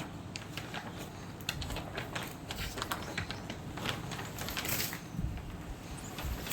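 Rapid, irregular clicks and rustles of flower stems and leaves being handled and cut during the harvest.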